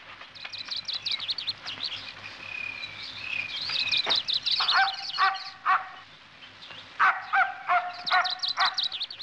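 Birds chirping and twittering through the first half, then a dog barking in short repeated yaps in the second half.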